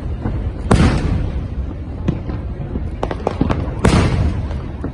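Fireworks bursting: two loud booms about three seconds apart, each trailing off in a long echoing tail, amid many smaller crackling pops over a steady low rumble.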